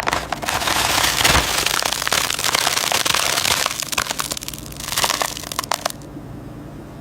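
Potato chips crunching and crackling in a dense run of sharp snaps for about four seconds, with another short burst about five seconds in, then fading off.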